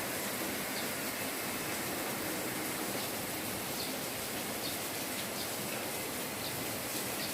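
Light rain falling steadily: an even hiss with faint scattered ticks of single drops.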